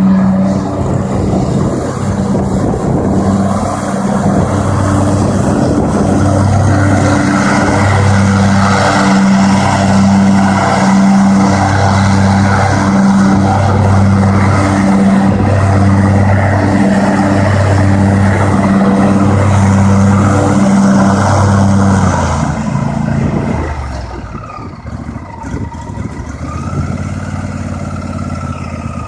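McCulloch lawn mower engine running loudly, its drone swelling and fading regularly about once a second. Near the end it drops to a noticeably quieter level.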